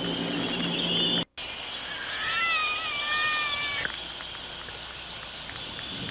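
An albatross giving one drawn-out call about two seconds in, falling slightly in pitch and then holding level for under two seconds before it stops abruptly. Just before it, the recording cuts out briefly.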